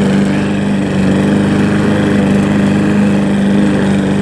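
Self-propelled walk-behind lawn mower's small single-cylinder engine running steadily at its one fixed speed while the mower drives itself along.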